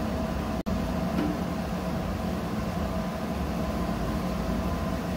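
Steady machinery drone, mostly low, with a few steady hum tones running through it. The sound cuts out for an instant just over half a second in.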